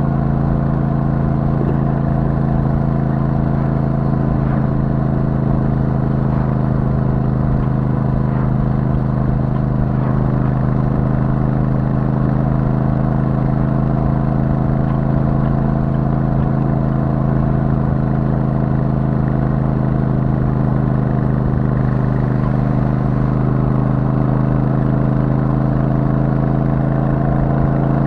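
Royal Enfield Super Meteor 650's 648 cc parallel-twin engine through its stock exhaust, running at steady cruising revs. The pitch rises a little near the end.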